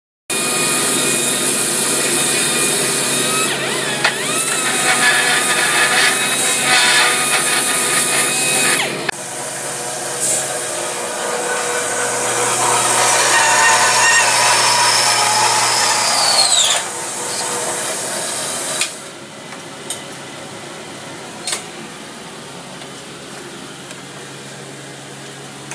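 Horizontal metal-cutting band saw running and cutting steel rod. The machine sound falls away in a falling whine about two-thirds of the way through, leaving a quieter steady hum with a couple of short clicks.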